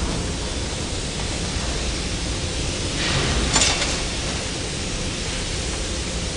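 Steady industrial noise of a hot steel rolling mill running, with a brief hissing rush about three and a half seconds in.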